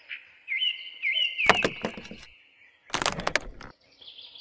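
Small birds chirping in repeated short tweets, broken by sharp plastic clatters about a second and a half in and a quick rattle of clicks around three seconds in as a toy plastic picket fence is set in place.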